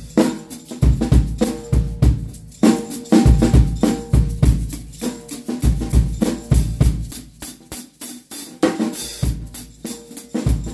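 Drum kit played in a busy groove: kick drum thumps under a quick run of stick hits, several a second, some with a ringing drum tone.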